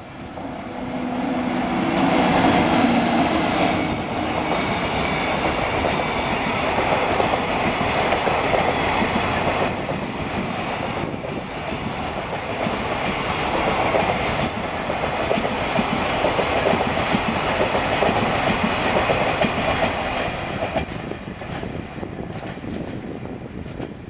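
Electric-hauled container freight train running past close by, wheels clattering over the rail joints with some wheel squeal. The noise swells about a second in as the locomotive and wagons arrive, holds steady, and fades over the last few seconds as the end of the train goes by.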